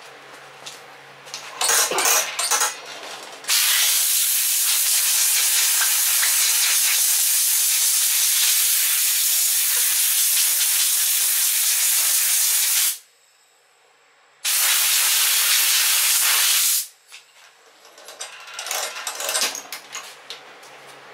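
Compressed-air blow gun blowing dust out of a chainsaw's air filter: a short burst about two seconds in, then a loud, even hiss lasting about nine seconds, a brief pause, and another burst of about two seconds.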